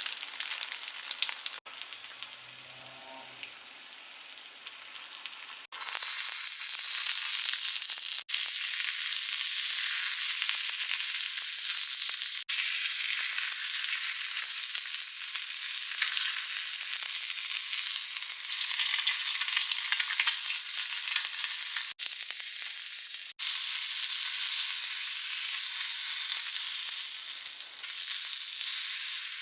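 Food sizzling in a hot frying pan: a steady hiss that starts loud about six seconds in and breaks off for an instant several times. Before that there is quieter, light rattling.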